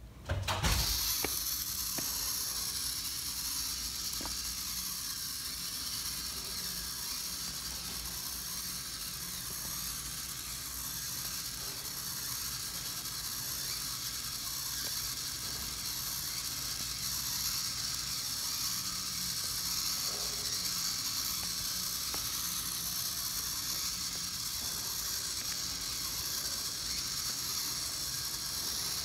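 The small electric drive motors of a KIPR Link wheeled robot start up and then run steadily as the robot drives along the line.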